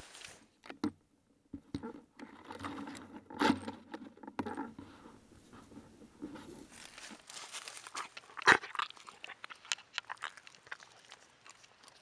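Walking through brush and dry fallen leaves: irregular crunching and rustling with scattered snaps of twigs, and one louder sharp crack past the middle.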